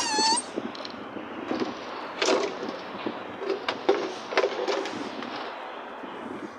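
A Staffordshire bull terrier puppy gives one short, high-pitched whine that rises at the start, followed by scattered light knocks and rustles as wet puppies scuffle and play over a plastic object.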